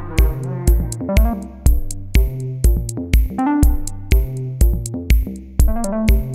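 Electronic background music with a steady drum-machine beat, about two beats a second, and synthesizer melody.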